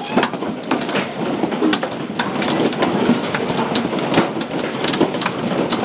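Large hailstones striking hard surfaces in a heavy downpour: many sharp, irregular impacts over a steady rush of rain.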